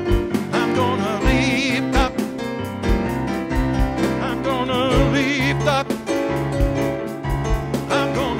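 Gospel song on an electronic keyboard with a steady drum beat and a sung melody with vibrato.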